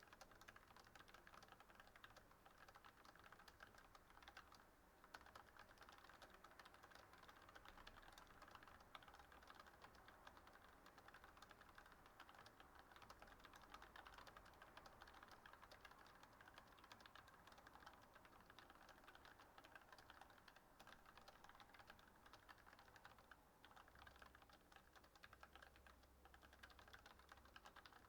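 Fast, continuous typing on a computer keyboard, keystrokes clicking faintly in a dense stream, with short breaks about five and twenty-three seconds in.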